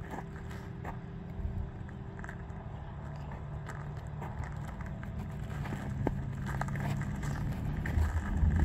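Steady low rumble of road traffic that swells near the end as a vehicle comes closer, with light footsteps on icy ground.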